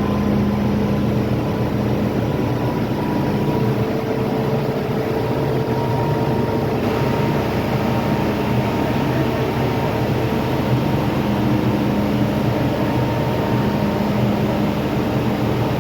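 MTR Island Line M-Train (A101/A166) running at steady speed: traction motor hum with a few constant tones over steady wheel-on-rail rumble.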